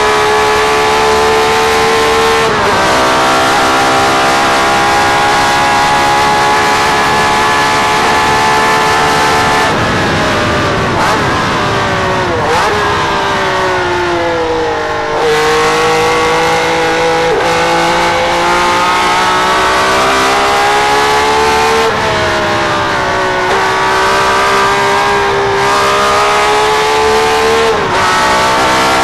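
Ferrari V12 Formula One engine, recorded from on board the car during a lap of Monza, running hard. Its high note holds steady, drops through several downshifts under braking near the middle, then climbs again through the gears, with sharp dips at each upshift.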